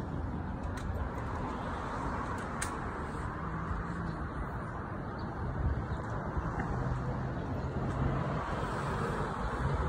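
Street traffic noise: a steady wash of road sound with a low engine hum that comes and goes.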